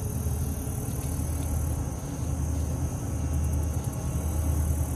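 Steady low drone of a passing river barge tow's diesel engines.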